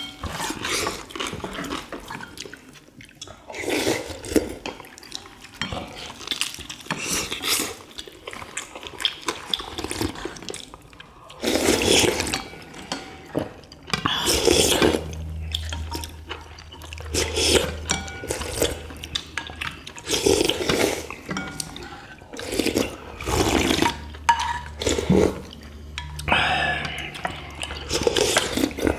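Several people slurping chicken broth and chewing boiled chicken in irregular wet bursts.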